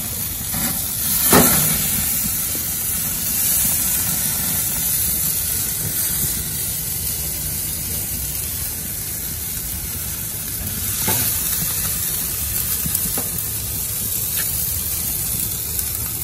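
Tomahawk steak sizzling as it sears on a propane grill's grate, its fat cap rendering and dripping grease into the flames for a steady hiss. A sharp knock comes about a second in and another near eleven seconds.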